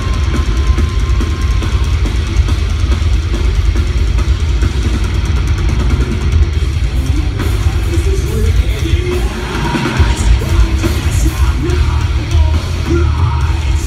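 Heavy metal band playing live with distorted guitars and drums, heard from high in the arena stands.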